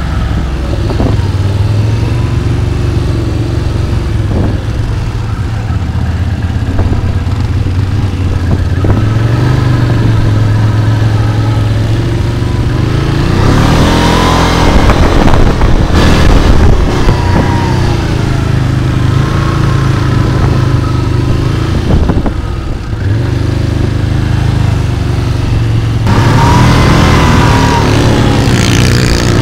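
Quad bike engine running under way on a dirt trail, its revs rising and falling, with harder revving around the middle and again near the end.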